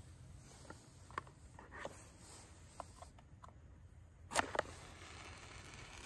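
Scattered light clicks and knocks of objects being handled, with a sharper double knock about four and a half seconds in.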